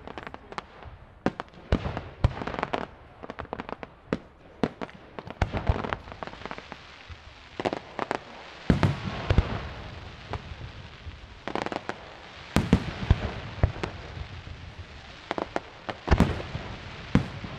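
Aerial fireworks display: shells bursting in irregular succession, sharp bangs coming singly and in quick clusters.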